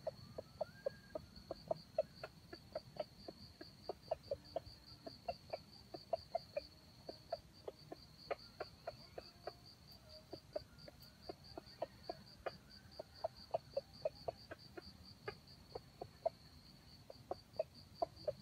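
Red junglefowl clucking in a long run of short, low clucks, about three a second. An insect's high pulsing trill runs underneath.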